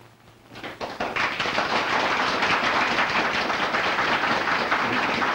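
Audience clapping, starting about a second in after a short quiet and holding as steady applause.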